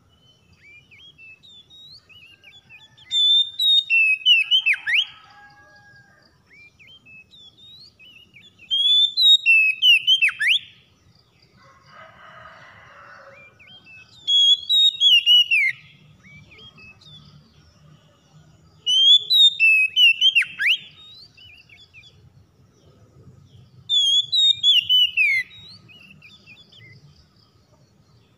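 Oriental magpie-robin singing: five loud whistled phrases of rising and falling notes with sharp downward sweeps, coming about every five seconds. A short soft rustle falls near the middle.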